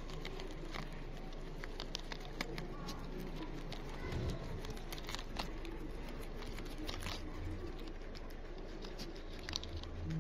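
Pet hamster making small, irregular clicks and rustles, scattered unevenly with no steady rhythm, over a faint steady low hum.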